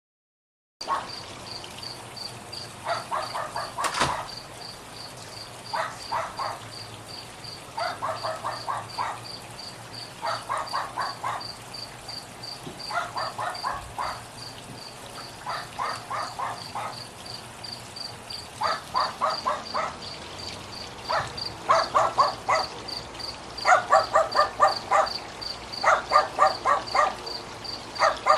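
A cricket chirping in a high, even pulse, under which a lower animal call comes in short rapid pulse trains every two to three seconds, louder and more frequent near the end. A single sharp click about four seconds in.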